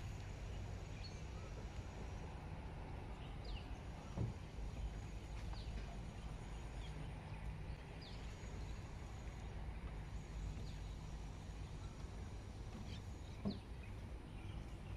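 Birds chirping now and then in short high calls over a low steady rumble. A couple of sharp knocks, about four seconds in and near the end, are footsteps on the wooden boardwalk.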